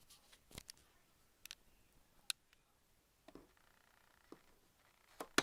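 Scattered faint clicks and taps of a Bissell upright vacuum's plastic parts being handled, with one sharper click near the end.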